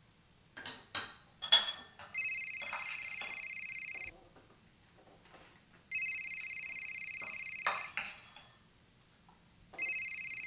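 A metal spoon clinks against a cereal bowl a few times. Then a telephone rings: an electronic trilling ring about two seconds long, sounding three times with pauses of about two seconds between rings, the third starting near the end.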